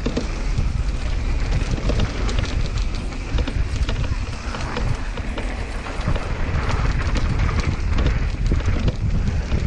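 Mountain bike descending a dirt trail: tyres crackling over dirt and loose stones, with a steady rattle of the bike and heavy wind rumble on the microphone.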